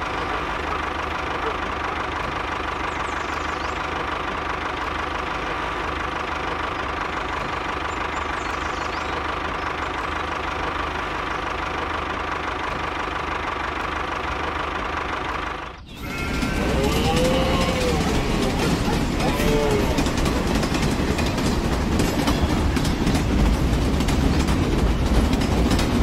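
Small electric motor of a toy vehicle whining steadily. About sixteen seconds in, after a cut, a louder rattling motor with fast regular clicking takes over, with two short squeaky glides in the middle.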